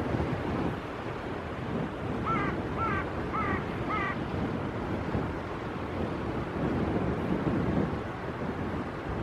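Wind buffeting the microphone over a wash of choppy water. A bird calls four times in quick succession a couple of seconds in.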